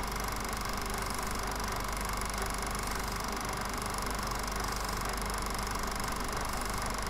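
Film projector running: a steady whirring drone with a low hum underneath.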